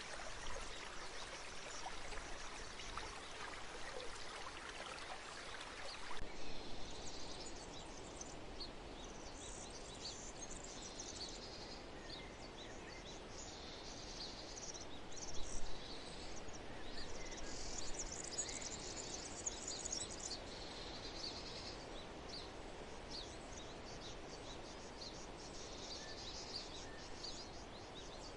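Nature ambience: a stream runs steadily for about six seconds, then the sound changes abruptly to birds chirping with insects trilling over a faint hiss.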